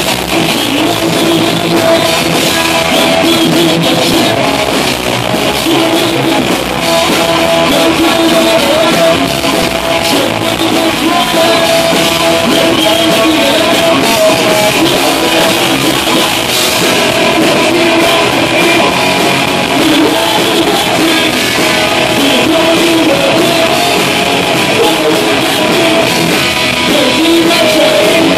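Live rock band playing loud: a drum kit hit hard with crashing cymbals under distorted electric guitar, recorded close to the drums and harsh, overloaded.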